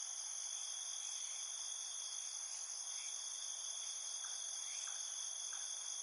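A steady chorus of trilling insects: several unbroken high-pitched tones held level throughout, with a few faint short chirps.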